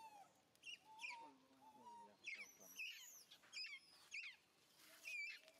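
Faint birds chirping: many short, quick chirps in irregular succession, with a few lower drawn-out calls underneath.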